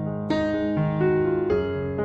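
Background music: an electric piano playing notes and chords, with new notes struck about a third of a second in and again about a second and a half in.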